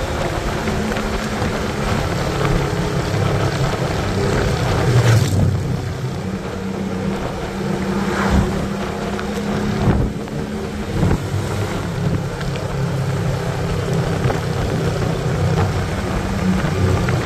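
A Yamaha motorcycle's engine running steadily at road speed, heavily mixed with wind rushing over the microphone. There are a few short whooshes of wind or passing traffic about 5, 8 and 10 seconds in.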